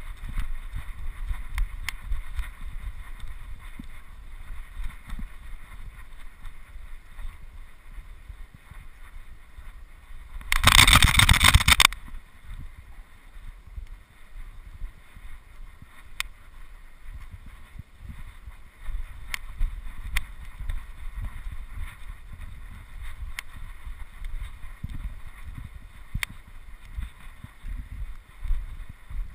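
Wind rumbling on the microphone, with small irregular low knocks, and a loud rush of noise lasting about a second and a half about ten seconds in.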